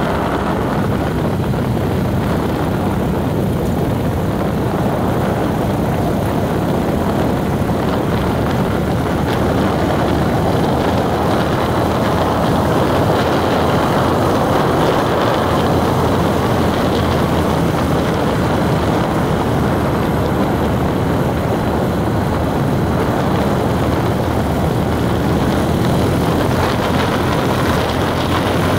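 Steady rumble of a vehicle driving along a road, engine and tyre noise running without a break and swelling slightly in the middle.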